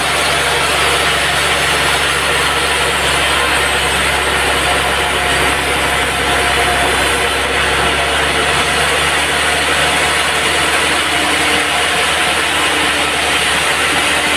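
Band sawmill running, its blade cutting through a hardwood log with a steady, dense hiss over a low motor hum. The hum drops away about two thirds of the way in.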